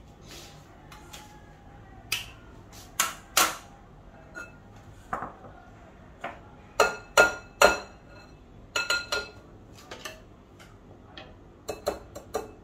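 Metal wire whisk and measuring cup clinking and knocking against a glass mixing bowl: a dozen or so irregular sharp taps, some with a short metallic ring, loudest about two-thirds of the way through.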